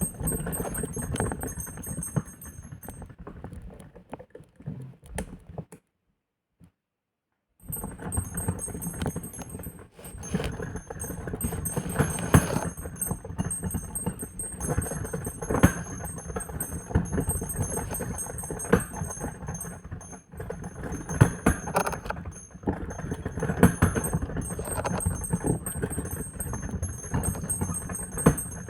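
Old bells swung in full turns (volteo), striking over and over in an irregular metallic clanging and jangling. The sound cuts out completely for about two seconds near six seconds in.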